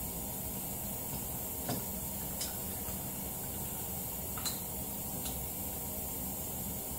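Steady hiss with about four faint metal clicks from hands handling the brake disc and hub on an ATV's rear axle.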